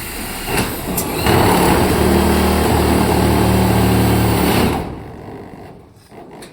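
An electric power tool working on steel runs loudly and steadily for about three and a half seconds, a high thin whine over a dense rasping noise and a low hum. It then winds down.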